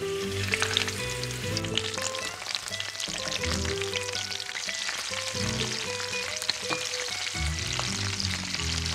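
Shrimp frying in hot olive oil with sliced garlic in a cast-iron skillet: a steady sizzle full of small crackling pops, starting as the first shrimp goes into the oil. Soft background music plays underneath.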